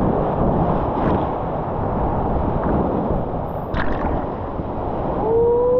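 Whitewater rushing and churning around a kayak running a rapid, with a sharp splash about four seconds in. Near the end a person lets out a long, held whoop.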